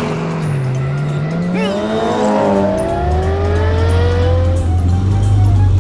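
Cartoon race car sound effects: engines revving in several overlapping rising whines over a steady low drone.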